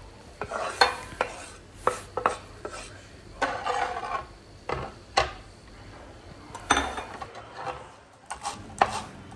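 Chef's knife scraping chopped cilantro off a bamboo cutting board into a glass bowl, with scattered light clinks and knocks of knife, board and bowl.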